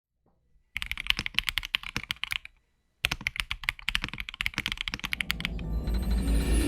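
Fast typing on an Akko ACR Top 75 mechanical keyboard with Akko Crystal Wine Red switches and MDA-profile keycaps: a rapid run of key clacks, a half-second pause, then a second run. Background music fades in under the typing near the end.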